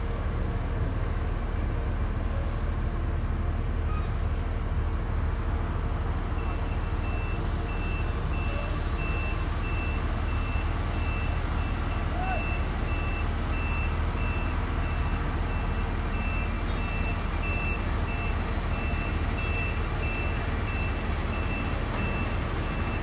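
Heavy vehicle engine running with a steady low rumble; about six seconds in, a reversing alarm starts a steady run of short, evenly spaced high beeps that carries on throughout.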